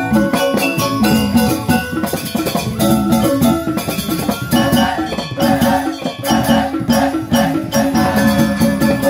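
Live Balinese joged bumbung gamelan playing: bamboo xylophones ringing in fast, dense patterns over kendang drums and small jingling cymbals.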